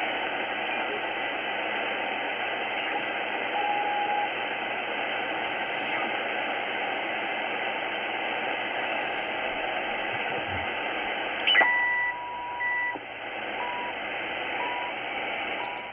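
Tecsun S-2200x shortwave receiver's speaker giving steady static hiss while being tuned through the 3200–3330 kHz range in single sideband mode, with a brief whistle near the start. About 11 seconds in, a click and the CHU Canada time signal on 3330 kHz comes in: a steady one-kilohertz tone, then short beeps.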